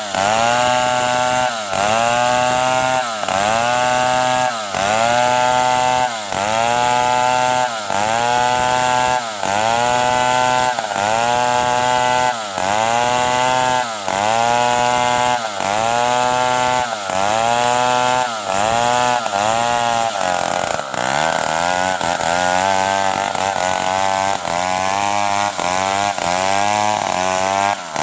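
Stihl 070 two-stroke chainsaw running at high revs and cutting wood, its engine note dipping and recovering about every second and a half. About twenty seconds in the note drops lower and the dips come quicker and less even.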